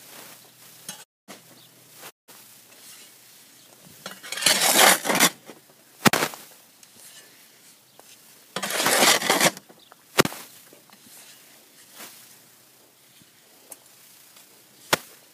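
A shovel scraping as it scoops planter mix out of a wheelbarrow, twice, each scrape lasting about a second, with a few sharp single clanks of the shovel against the barrow in between and near the end.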